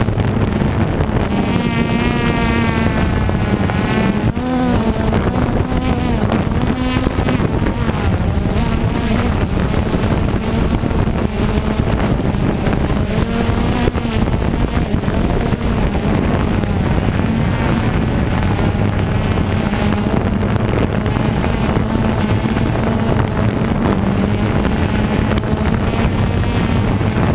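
DJI Phantom 2 quadcopter's motors and propellers buzzing in flight, the pitch wavering up and down as the motors speed up and slow down, with wind buffeting the microphone.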